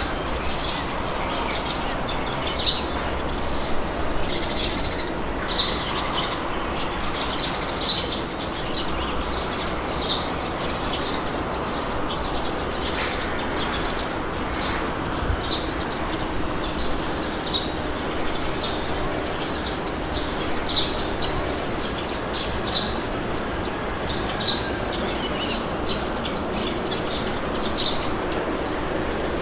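Steady wind blowing, with birds chirping short calls every second or two.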